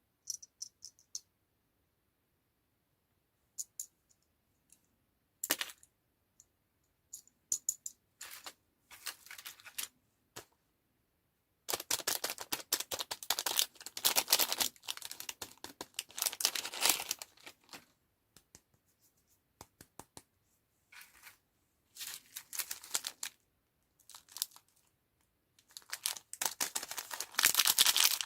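Candy packaging being handled and opened: scattered light clicks and taps, then several long spells of plastic wrapper crinkling and tearing, the longest about halfway through.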